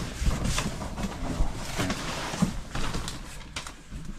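Rummaging by hand through a cardboard box of toys and DVD cases: irregular rustling with scattered clicks and knocks of plastic and cardboard, over a low rumble.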